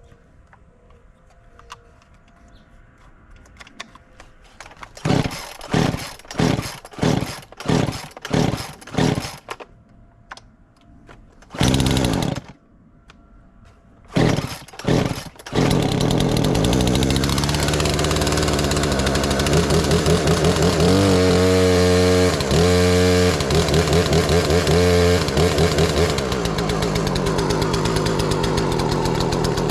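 Gas chainsaw being pull-started: a run of quick starter-cord pulls, a short catch, two more pulls, then the engine fires about fifteen seconds in and keeps running. It is revved up several times and settles to a steadier lower run near the end.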